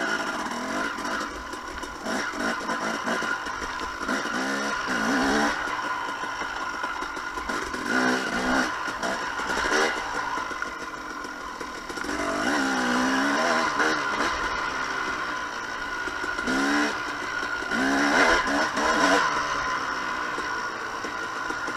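2007 KTM 250 XC-W single-cylinder two-stroke engine running, its pitch rising and falling over and over as the throttle is opened and closed.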